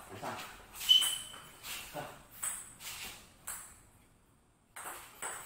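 Table tennis rally: a ping-pong ball clicking off bats and the table at about two hits a second, the sharpest hit about a second in ringing briefly. The clicks stop for about a second near the end, then start again.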